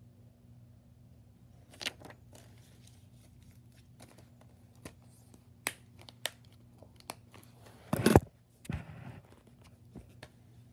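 A plastic Blu-ray case being handled and snapped shut: rustling and a string of sharp clicks, loudest in a quick clack about eight seconds in.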